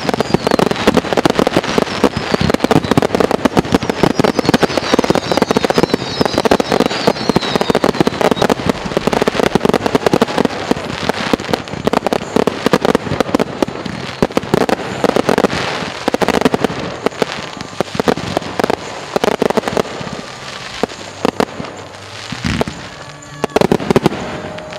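Low-level fireworks display going off: a dense, rapid crackle of popping bursts, with a high wavering whistle a few seconds in. The barrage thins out to a few separate bangs near the end.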